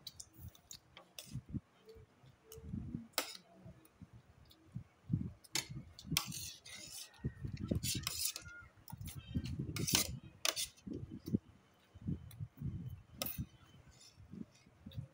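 Close-up eating sounds: chewing and lip-smacking, with a fork and spoon clicking against ceramic plates now and then.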